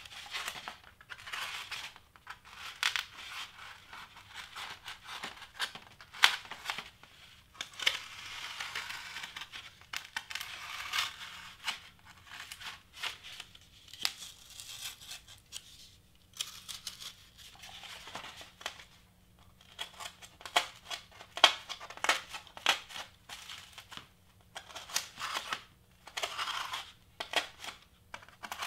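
Craft knife with a dull blade cutting through foam board: repeated short, scratchy strokes of the blade dragging and tearing through the foam, with brief pauses between and a few sharp clicks.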